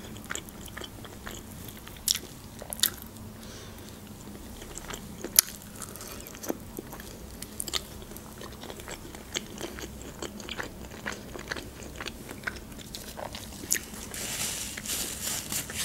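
Close-up eating of chicken wings: chewing and biting, with many short, sharp clicks and smacks as the meat is pulled off the bone. Near the end a paper napkin rustles.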